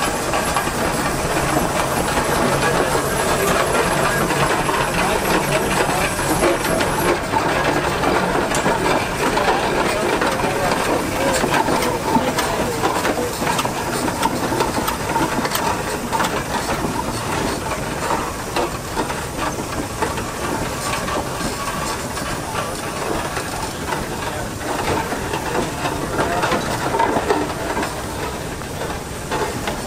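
Frick steam traction engine running as it drives slowly by, steam hissing steadily, with a dense clatter of short knocks through it.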